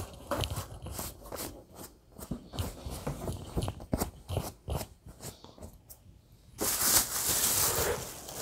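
Bags being handled and rummaged through: scattered crackles and crinkles, then a louder stretch of plastic-bag rustling near the end.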